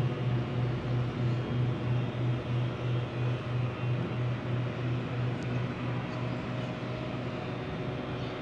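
Low electric hum from the aquarium's pumps, pulsing a little over twice a second, over a steady hiss of moving water.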